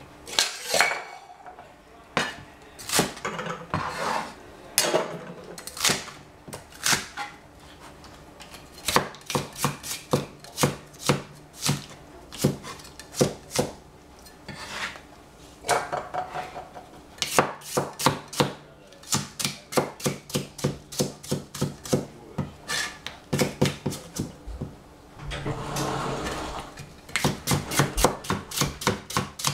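Cleaver chopping celery stalks on a plastic cutting board: sharp knocks, some scattered and some in runs of quick, even strokes.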